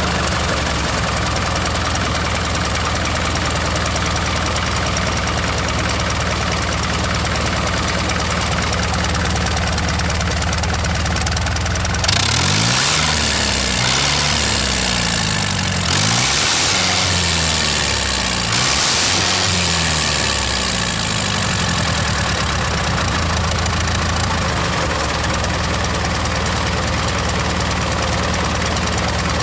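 Small engine of a home-built miniature tractor running steadily; about twelve seconds in its speed rises and falls several times for some seconds, then it settles back to a steady run.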